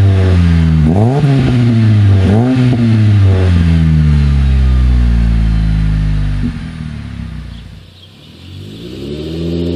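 Modified 2008 Dodge Avenger revved through its twin-tip modified exhaust while parked: three quick blips about a second apart, then the revs sinking slowly back down. Near the end a 2013 Dodge Avenger pulls away, its engine note rising steadily.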